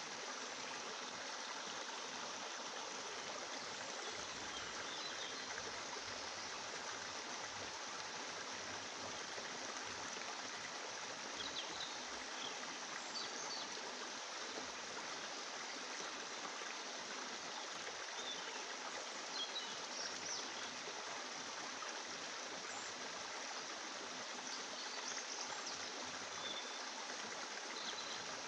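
Steady rushing hiss of running water, like a stream, unchanging throughout, with a few faint short high sounds here and there.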